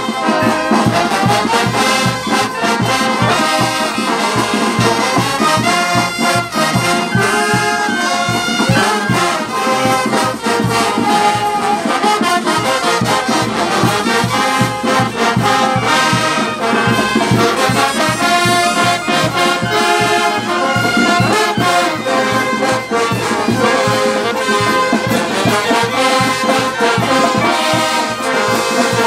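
Brass band music: trumpets and trombones playing the tune over a steady beat.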